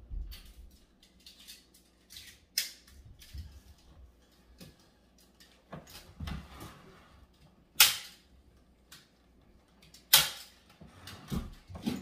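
Staple gun driving staples through tufting cloth into the frame: three sharp snaps, about 2.5, 8 and 10 seconds in, with softer clicks and knocks of handling in between.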